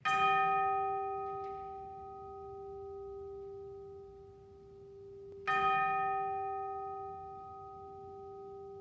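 A bell struck twice, about five and a half seconds apart; each strike rings on with a steady tone and slowly fades.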